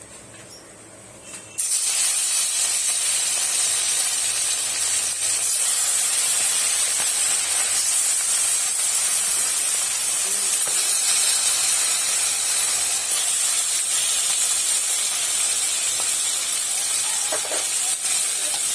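Pieces of catla fish going into hot oil in a kadai. A loud, steady sizzle starts suddenly about a second and a half in as the fish hits the oil, and keeps frying.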